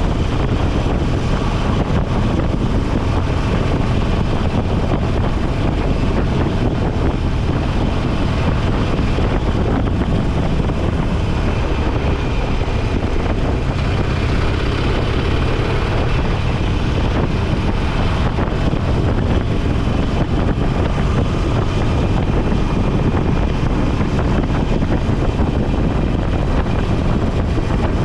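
Motorcycle engine running at a steady cruise, mixed with wind rushing over the microphone.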